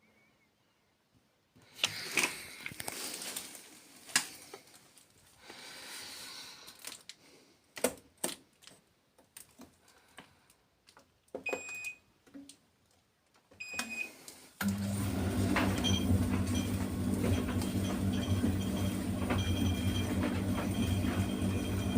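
Proline TD 6 VE Glass tumble dryer being set going: scattered clicks and knocks of handling, two short high beeps from the control panel, then about 15 seconds in the motor and drum start up suddenly and run with a steady low hum.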